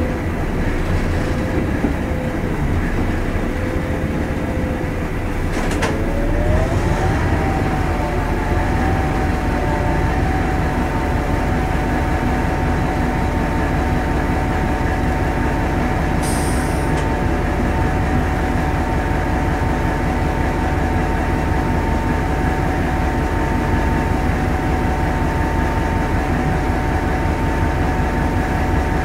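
Hastings DEMU diesel-electric train running on the line, heard from the cab, with the steady drone of its English Electric 4SRKT diesel engine. About six seconds in there is a click and a whine rises in pitch, then holds steady. A brief high hiss comes about halfway through.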